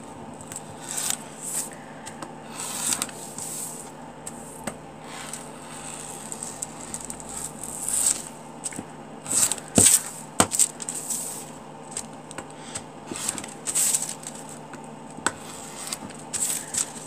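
Rotary cutter rolling through folded pattern paper on a cutting mat in a series of short scratchy cuts, the paper crinkling as it is turned and handled. Two sharp clicks about ten seconds in.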